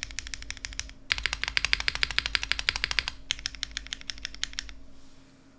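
Fast typing on a Geonworks F2-60 custom keyboard with lubed Gateron RAW switches, an aluminium plate and GMK keycaps: rapid runs of keystrokes in three bursts, the busiest in the middle, stopping near the end.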